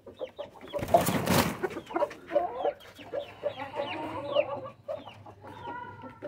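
Chickens clucking, with many short falling chirps all through and a longer call near the end. A short burst of rustling noise, the loudest sound here, comes about a second in.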